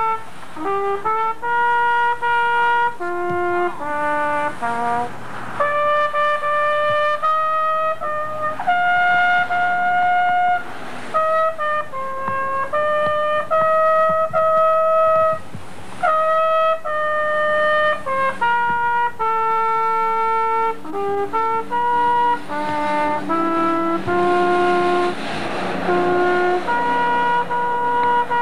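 Two trumpets playing a melody together in held notes, with short breaks between phrases.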